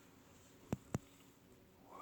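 Two short, sharp clicks about a fifth of a second apart, over a faint, quiet background.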